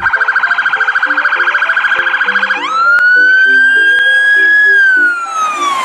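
Police car siren: a fast pulsing tone for about two and a half seconds, then a quick rise into a long held wail that falls away near the end.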